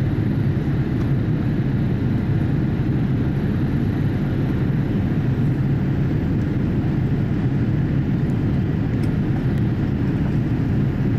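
Steady low rumble of engine and airflow noise inside a Boeing 787-8's cabin as it climbs out after takeoff, heard from a window seat over the wing.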